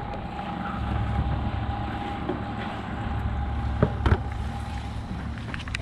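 Low wind rumble and water noise around a small moored fishing boat, with a faint steady hum. About four seconds in come two quick knocks on a plastic bucket lid.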